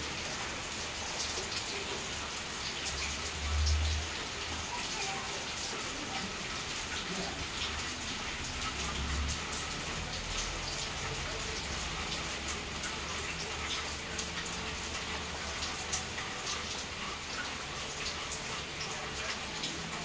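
Steady rain falling: a constant hiss sprinkled with many sharp drop ticks. A brief low rumble comes about three and a half seconds in, and a weaker one near nine seconds.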